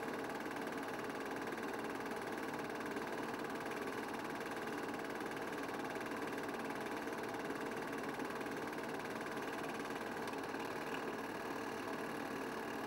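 Steady mechanical whirr and clatter of a film projector running, with a fixed hum that does not change with the picture.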